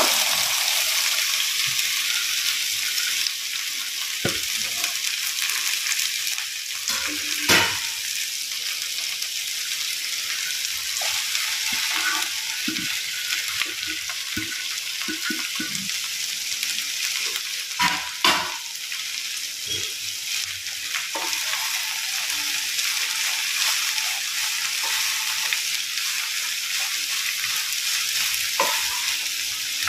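Chopped okra sizzling in hot oil in a non-stick pan as it is tipped in and stirred with a spatula: a steady high hiss. A few sharp knocks, loudest about 7 and 18 seconds in.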